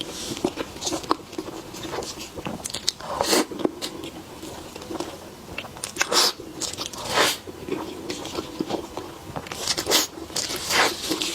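Close-miked eating sounds: bites and chewing of a dessert, with irregular soft crackles and a few louder bites.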